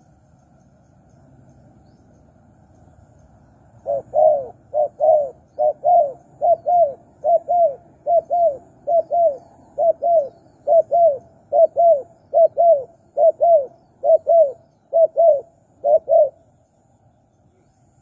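Spotted dove cooing: a long run of about fifteen quick paired coos, one pair roughly every 0.8 seconds, starting about four seconds in and stopping abruptly near the end.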